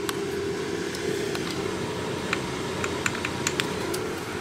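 A steady hum runs throughout, and a quick run of about seven sharp clicks falls around the middle.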